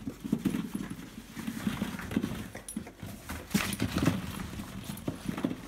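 A Hungarian vizsla nosing through a box of hollow plastic ball-pit balls, setting off irregular clattering and knocking of the balls against each other.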